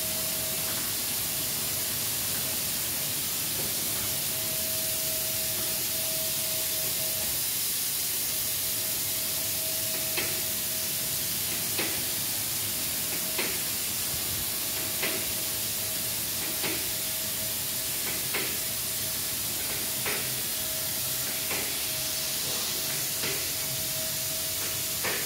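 An automatic car wash machine spraying water onto a car: a steady hiss with a thin steady whine under it. From about ten seconds in, a light tick repeats about every second and a half.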